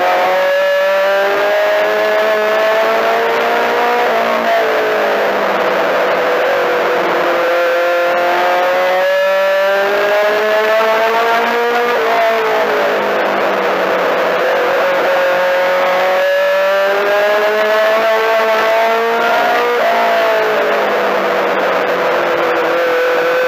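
Four-cylinder Mini-Stock race car engine at racing speed, heard from inside the car: the engine note climbs steadily along each straight and drops sharply when the throttle comes off for the turns, about every eight seconds, over a constant rush of wind and road noise.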